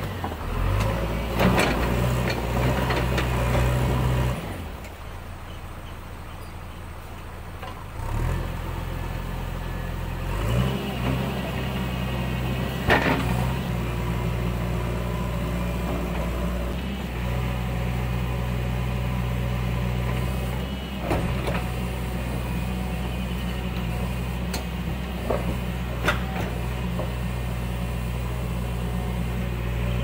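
JCB 3DX backhoe loader's diesel engine running steadily. About four seconds in it drops back to a lower idle, then revs up again in two steps a few seconds later. A few sharp knocks are heard as the machine works.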